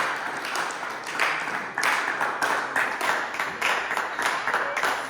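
A small group of people clapping and applauding, irregular hand claps overlapping.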